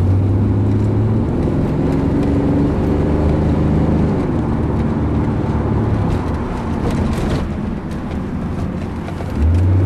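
Holden VN Commodore's V6 engine running under way with road noise as the car is driven; the engine note shifts in pitch as the revs change.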